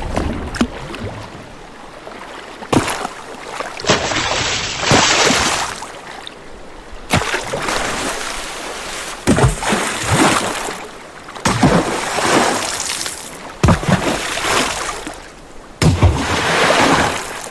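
Water splashing and sloshing in repeated surges every one to two seconds, like a swimmer's strokes through the water.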